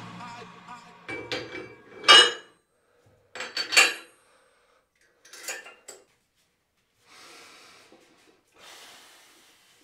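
Iron weight plates clinking against each other and the barbell sleeve as plates are handled on a loaded barbell, a few sharp metal clanks with the loudest about two and four seconds in. Soft rubbing sounds follow near the end.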